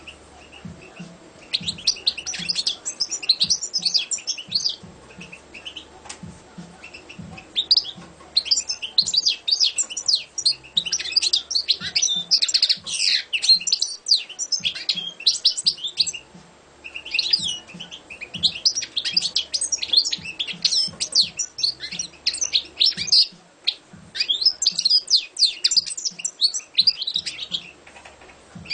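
European goldfinch singing: fast, high twittering phrases in four long runs broken by short pauses.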